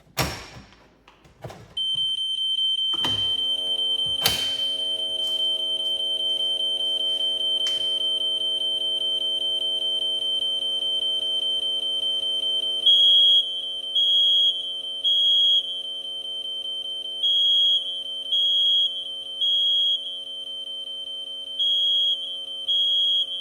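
Fire alarm system activated by pulling a pull station: a few clicks and knocks, then a steady high-pitched continuous alarm tone starts about two seconds in, joined a second later by a lower steady chord of tones. From about thirteen seconds a second high beeper sounds in groups of three beeps with a pause between groups, the temporal-three evacuation pattern.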